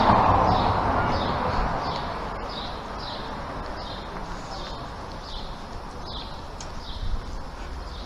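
Outdoor street ambience: a broad noise that is loudest at the start and fades away over the first two seconds, with short high chirps repeating about twice a second throughout.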